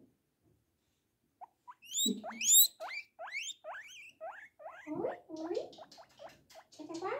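A small animal squeaking: a quick series of short rising squeals, two or three a second, starting about a second and a half in, with the loudest ones at about two and a half seconds.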